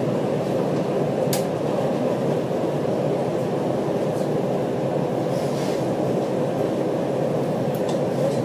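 Steady hum inside a standing electric train car, from its ventilation and onboard equipment, while the train waits after an emergency stop. A couple of faint clicks are heard about a second in and near the end.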